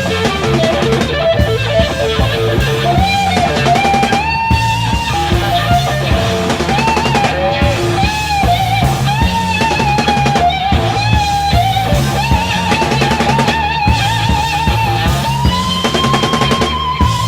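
Electric guitar solo in acid rock, the lead line bending and wavering with wide vibrato over a rock drum kit. Near the end it glides up to one long held note.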